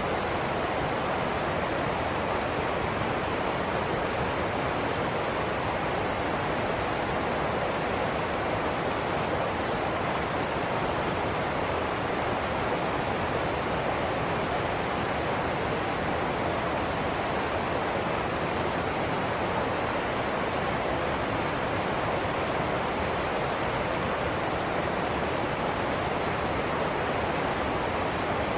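River water rushing and splashing over rocks in a small cascade of rapids, a steady, unbroken rushing.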